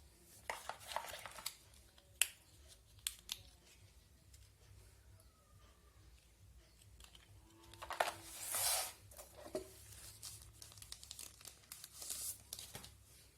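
Packaging being handled during unboxing: rustling and crinkling in several short bursts, with a few sharp clicks. The longest rustle comes just past the middle.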